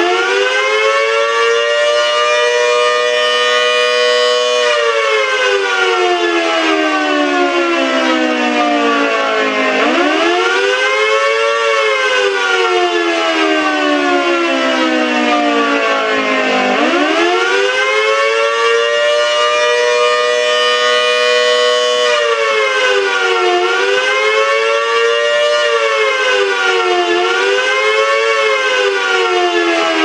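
1960s W.S. Darley Model 2T dual-tone 2 hp civil defense siren sounding two tones at once in a slow wail. It rises, holds briefly, falls slowly, then rises and falls twice more. About two-thirds of the way through it switches to a fast wail, the pitch going up and down every second and a half or so, and falls away near the end.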